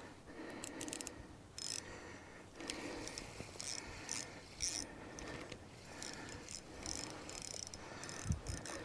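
Fishing reel working against a hooked fish: irregular clicking and ratcheting from the reel as line is wound in.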